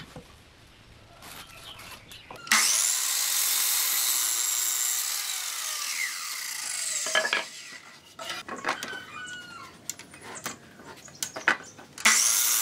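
Sliding compound miter saw cutting a wooden board: the loud saw sound starts suddenly a couple of seconds in, runs for about four seconds and winds down with a falling whine. Knocks and clicks of the board being handled follow, and a second cut starts suddenly near the end.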